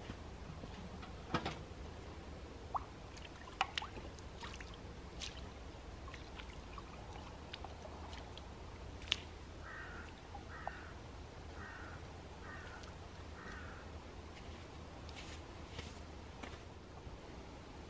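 Water splashing and dripping softly as two small containers are dipped and rinsed at the edge of a calm loch, with a few sharp clinks and footsteps on shingle. About halfway through, a bird gives five short harsh calls in a steady row.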